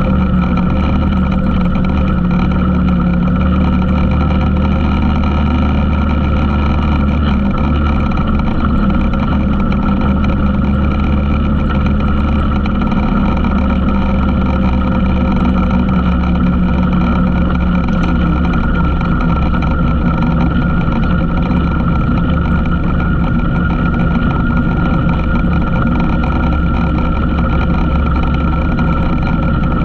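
ATV engine running at a steady speed, a constant drone that holds one pitch throughout, as heard riding along the trail.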